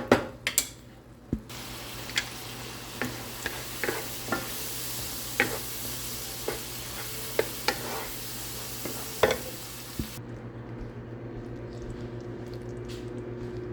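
Shiitake mushrooms and onions frying in butter and oil in a pan, sizzling steadily, with a utensil clicking against the pan now and then. About ten seconds in, the sizzle cuts off and a low steady hum remains.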